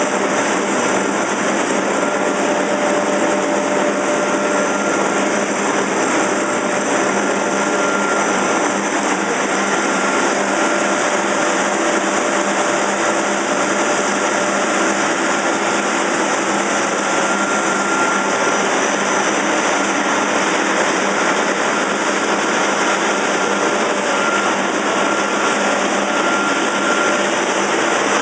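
Pet food extrusion line machinery running: a loud, steady, unbroken machine noise with a few faint steady hums in it.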